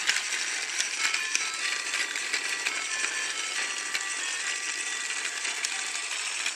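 Trackmaster Thomas toy engine running on plastic track: its small electric motor whirring while the wheels and the coupled coaches click and rattle over the track joints, with irregular sharp clicks.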